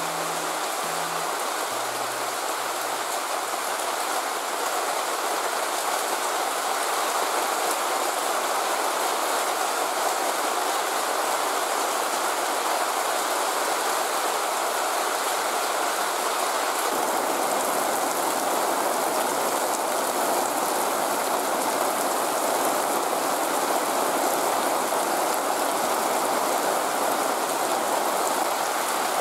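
Heavy rain pouring down in a cloudburst: a steady, dense rushing hiss with no let-up, growing slightly louder about four seconds in.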